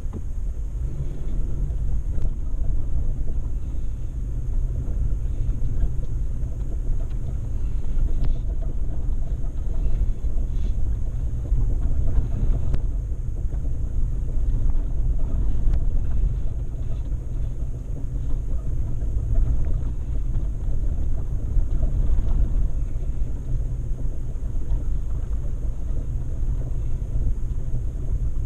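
An off-road vehicle driving a rough dirt trail: a steady low rumble of engine and drivetrain, with a light knock now and then.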